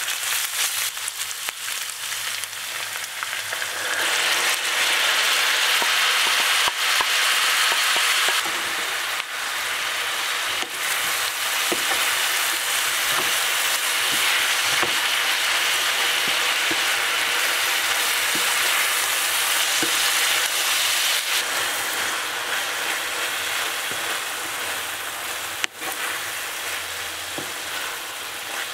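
Makhlama, minced meat and egg, sizzling in a frying pan, with occasional light taps as it is stirred. The sizzle grows louder about four seconds in.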